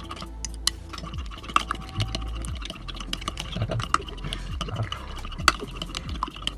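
A spoon stirring a thick mixture of instant coffee and fermented milk in a glass mug, clinking against the glass again and again with wet swirling in between.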